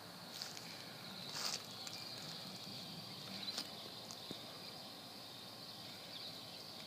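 Quiet outdoor evening ambience: a faint steady high-pitched hum with a few short clicks, the loudest about a second and a half in.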